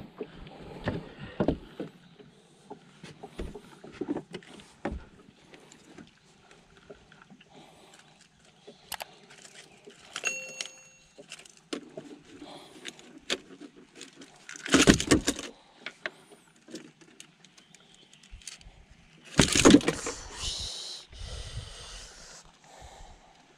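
Handling noises: scattered light clicks, knocks and rustles. There are two louder bursts of rustling, one about fifteen seconds in and a longer one around twenty seconds.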